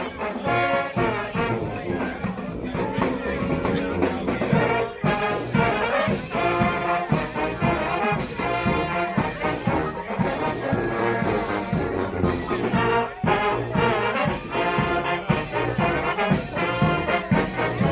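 Street brass band playing: trombones and trumpets over a steady beat.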